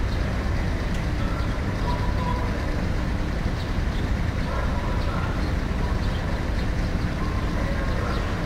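Car ferry's engines running steadily while it lies at the pier: a low, even rumble with water churning along the hull.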